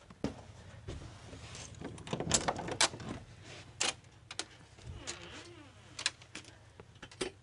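Rummaging and handling noise: a string of sharp clicks and knocks with some rustling, densest about two to three seconds in, with single knocks after that.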